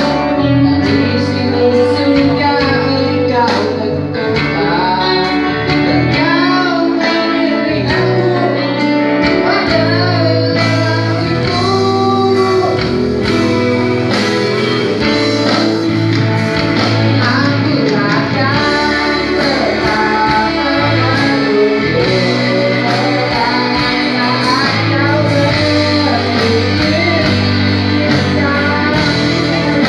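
A male singer singing a pop song live into a microphone, backed by a live band with guitar, amplified through the PA.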